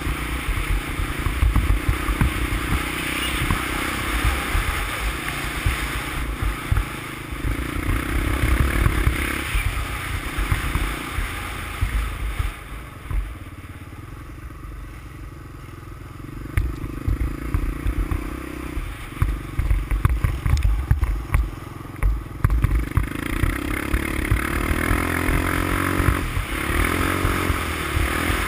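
Honda ATC350X's single-cylinder four-stroke engine running under way on a snowy trail, the throttle rising and falling. It eases off into a quieter stretch about halfway through, picks up again, and revs up near the end.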